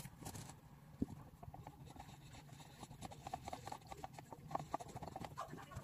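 Soft handling sounds at a desk: hands on a spiral notebook and a paper cup. There is a click about a second in, then a run of light, quick taps and knocks.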